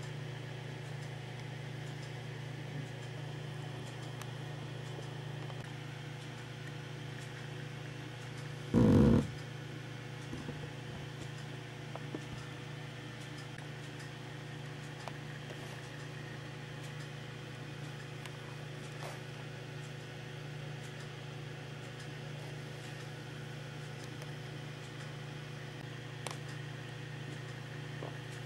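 Steady low hum throughout, with one short, loud low sound about nine seconds in.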